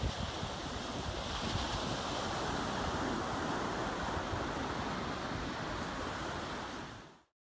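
Sea surf breaking and washing up a sandy beach, a steady rushing wash, with wind buffeting the microphone. It fades out just before the end.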